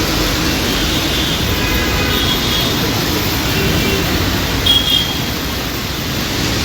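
Steady city road traffic in the rain: engines and tyres on a wet road, with a brief high tone a little past the middle.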